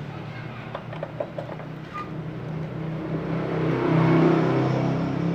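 A motor vehicle engine running steadily, swelling louder about four seconds in, with a few light metallic clicks of a screwdriver working the regulator's mounting bolt.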